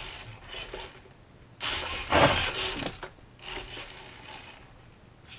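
Gmade Sawback RC crawler's electric motor and geared drivetrain running in short bursts, the longest about a second and a half around the middle, with a couple of fainter bursts either side.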